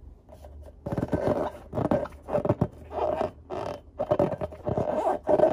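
Hands rubbing and squeezing a filled latex balloon, the rubber squeaking and creaking in quick repeated strokes that start about a second in.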